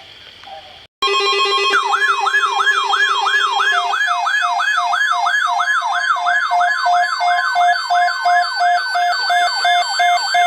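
Weather-radio alert alarms that start suddenly about a second in. A fast siren-like tone sweeps up and down about three times a second over steady and beeping tones, and a lower steady tone drops out about three seconds later.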